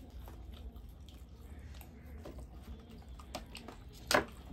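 Close-miked eating sounds of chole bhature: chewing and small clicking mouth and hand noises as bhatura is torn and dipped into chickpea curry, with one much louder sharp sound about four seconds in.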